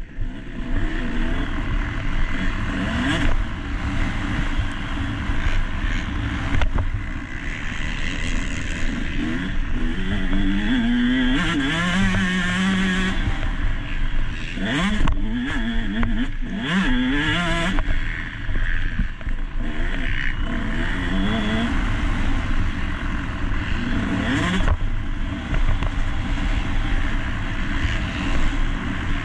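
Motocross bike's engine revving hard, its pitch rising and falling again and again as the rider opens and closes the throttle, heard close up from an onboard action camera.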